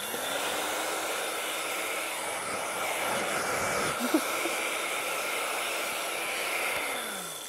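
Hand-held hair dryer switched on and blowing steadily, then switched off near the end with its motor winding down.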